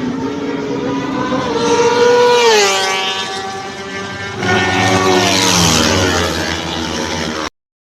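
Race car engines passing at speed: one engine's note climbs and then drops steeply in pitch as it goes by about two and a half seconds in, and a second one comes in loudly about four and a half seconds in, its note rising and then falling. The sound cuts off abruptly near the end.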